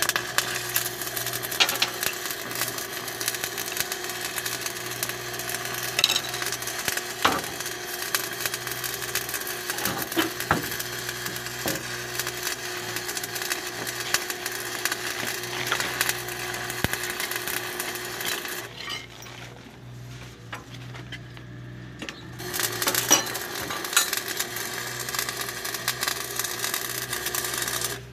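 Metal clinks and scrapes as an angle grinder's cutting disc, flange nut and spanner are handled, over a steady mechanical hum. The noise eases off for a few seconds about two-thirds of the way through.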